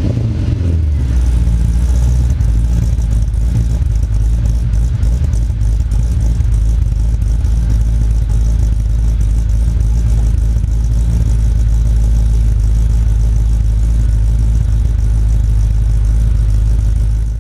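2009 Pontiac G8 GT's 6.0-litre V8 exhaust idling on a cold start, warming up. The revs drop back over the first second or two, then it holds a steady, loud idle.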